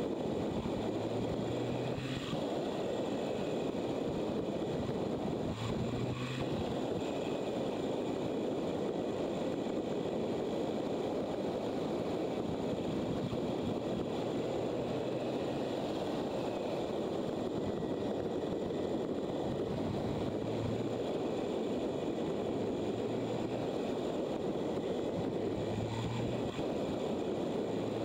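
Steady wind rush on a motorcycle-mounted camera while riding at speed, with the motorcycle's engine and road noise underneath; a short low engine hum comes and goes several times.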